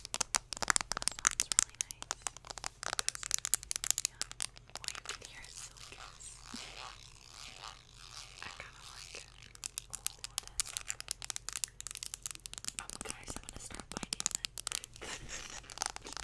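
Fingernails tapping and scratching on a small makeup item held right up to an ASMR microphone: rapid crackly clicks, sparser and quieter through the middle and busy again near the end.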